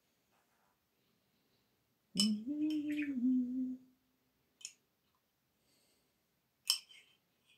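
A woman humming one low, wavering note for about a second and a half, followed by a couple of short sharp clicks.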